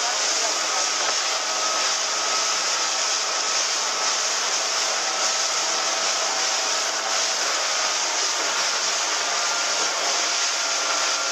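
Small motorboat under way at speed: a steady rush of wind and water spray along the hull, with the engine's faint even tone running underneath.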